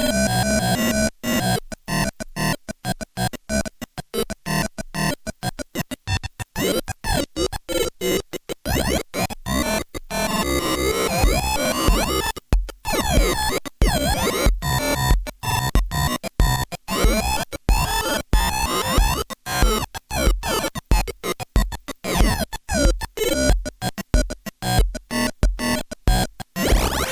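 Live modular synthesizer music: gliding, warbling synth tones chopped into a fast, stuttering rhythm, with sharp gaps cutting the sound on and off.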